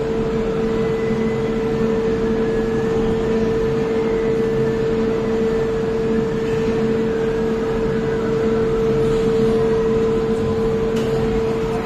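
Ocean Express funicular train pulling into the station behind the platform screen doors: a steady mechanical hum with a constant pitched tone.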